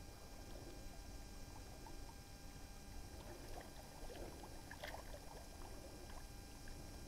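Faint water lapping against a rock revetment over a low steady rumble, with a few small ticks and one brief click about five seconds in.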